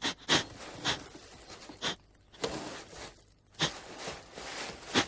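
A series of separate light knocks and taps, irregularly spaced about once a second, some with a dull thud.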